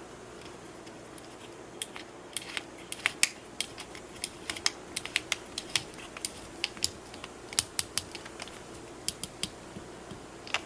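Irregular sharp plastic clicks and taps as PETG nuts are tightened onto a 3D-printed fidget toy with a printed plastic wrench tool. The clicks start about two seconds in and come in quick uneven runs of several a second.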